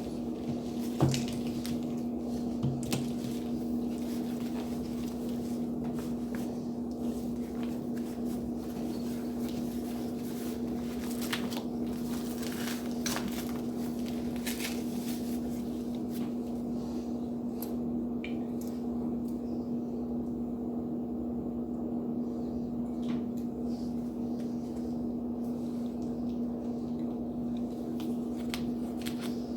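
A steady low hum throughout, with scattered light clicks and rustles from a blood-pressure cuff being put on and handled; the sharpest click comes about a second in.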